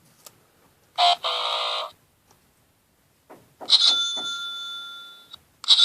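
A short buzz, then a bell-like chime struck twice, each ringing out and fading away like a doorbell.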